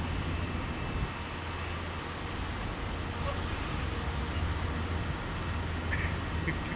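Steady low mechanical hum under a constant noisy rush, with a few faint ticks about six seconds in.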